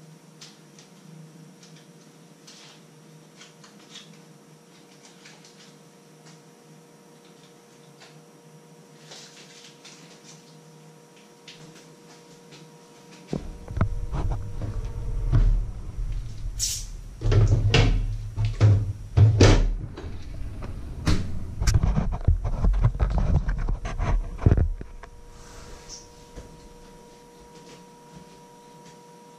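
Light kitchen clicks over a steady faint hum, then, about 13 seconds in, some eleven seconds of loud, close thumps, knocks and rumbling handling noise as something right beside the microphone is opened and handled. It dies back to the faint hum near the end.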